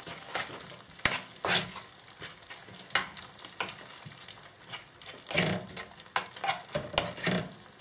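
Thick dudhi halwa being stirred in a hot pan: irregular scrapes and a few sharp knocks of the stirring utensil against the pan, over a steady faint sizzle of the cooking mixture.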